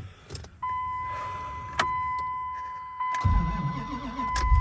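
Dodge Ram pickup's engine cold-started at about 1 degree. A steady high chime comes on with the ignition, then a click, then the starter cranks for about a second and a half before the engine catches and runs near the end.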